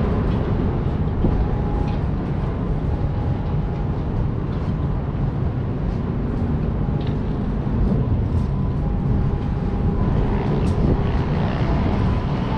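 Wind rushing over the microphone high on an open-air observation deck: a steady low rumble with faint thin tones drifting in and out.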